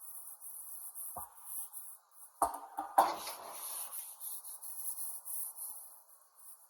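A few sharp knocks and clanks from a cast iron Dutch oven being handled, the loudest about three seconds in with a brief ring after it. Insects chirr steadily in the background.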